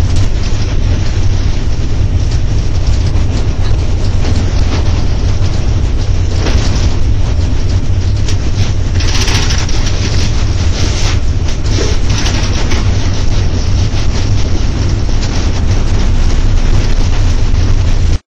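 Cab of a PKP EP07 electric locomotive running at speed: a loud, steady rumble of wheels on rails and running gear. A brighter hiss swells briefly twice, about six and nine seconds in.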